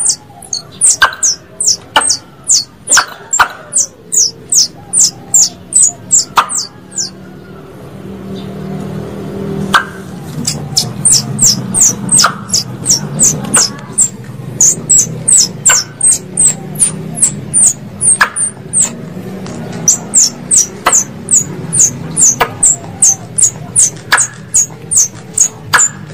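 Plantain squirrel (tupai kelapa) calls played as a hunting lure: a rapid series of sharp, high chips that fall in pitch, about three a second. They break off for about three seconds a third of the way in, then resume.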